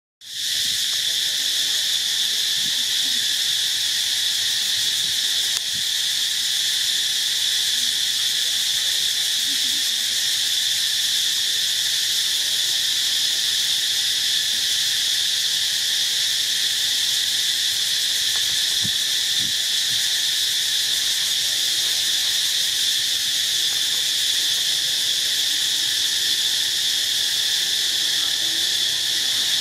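Insects droning in a steady, high-pitched chorus.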